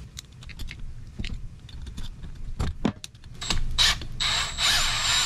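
Short ratchet wrench working a bolt on a motorcycle engine: scattered clicks and metal taps, then from about three and a half seconds a fast, continuous ratcheting buzz.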